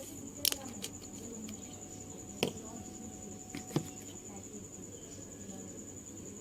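Steady high-pitched cricket trill, with three sharp clicks about half a second, two and a half and almost four seconds in.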